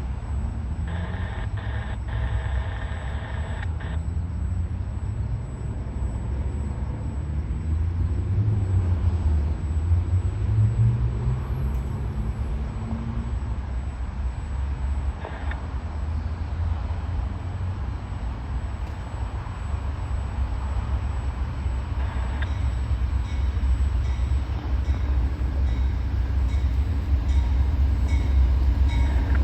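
A train horn blows for about three seconds near the start over a steady low diesel rumble. The rumble rises in pitch around the middle and grows louder toward the end as a train draws near.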